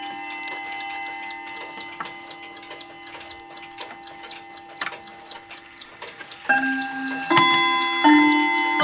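Mantel clock ticking while the ringing of a chime phrase fades out. Then chime rods are struck three times near the end, starting the next phrase of the chime tune.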